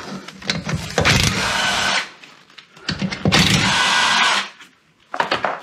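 A cordless power driver with a socket running on the wheel nuts of a Classic Mini's steel wheel, in two bursts of about a second each, with a few light knocks before the first.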